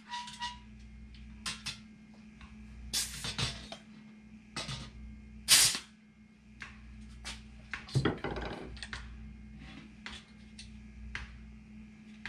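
Pneumatic rivet squeezer setting aluminium 470 rivets: several short bursts of air hiss with sharp clicks, the loudest about five and a half seconds in, and a clunk with a brief rattle about eight seconds in, over a steady low hum.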